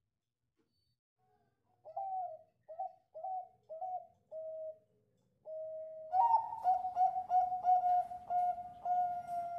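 Bangkok-strain zebra dove (perkutut) cooing. After about two seconds of quiet comes a row of short soft coos and one longer held note, then from about six seconds in a louder, quicker run of clipped coos, roughly three a second.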